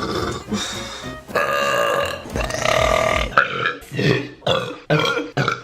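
A young woman burping: long drawn-out belches in the first half, then a run of short burps in quick succession.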